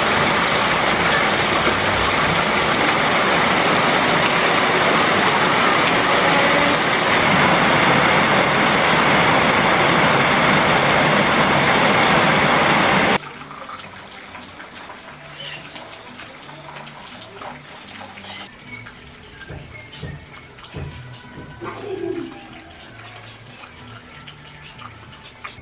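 Heavy tropical rain pouring down, a dense steady hiss of water that cuts off abruptly about halfway through. After it comes a much quieter stretch with faint scattered clicks.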